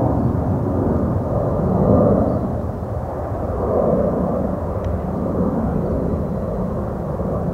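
Airbus A320 jet on final approach with landing gear down, its engines giving a steady low rumble that swells and eases every couple of seconds.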